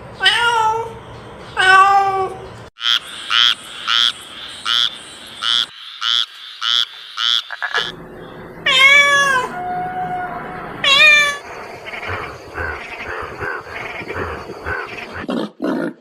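Animal calls: two pitched cries near the start and two more midway, between runs of short repeated chirps, the first about twice a second.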